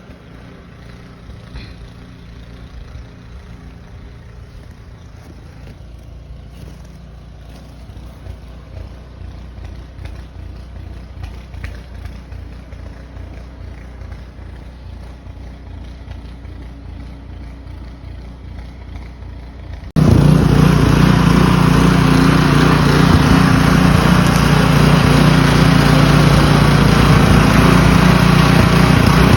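A small engine running steadily. About two-thirds of the way in it becomes abruptly much louder and closer.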